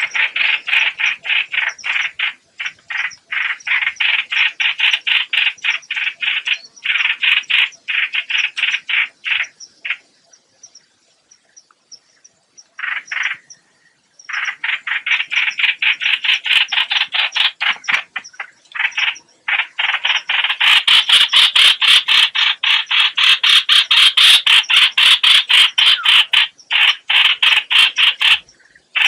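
Hoạch hoạch bird's lure call, used for bird trapping: long runs of harsh, rapid notes at about seven a second. The runs are broken by short pauses and by a two-second silence about ten seconds in, and the calling is louder and denser in the second half.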